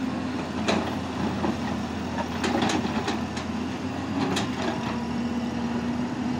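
Hyundai crawler excavator's diesel engine running steadily as its bucket digs into rocky soil, with several sharp knocks and clatters of stones against the bucket.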